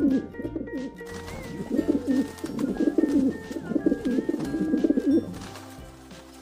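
Rock pigeons cooing in repeated throaty, warbling phrases that stop about five seconds in, over soft background music with long held notes.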